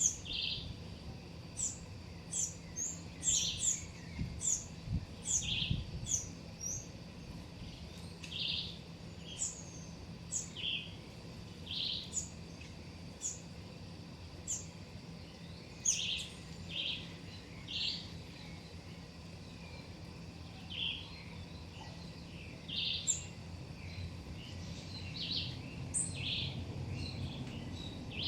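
Small birds calling with short, sharp chirps, repeated every second or so, some notes high and some lower, over a faint steady background hum.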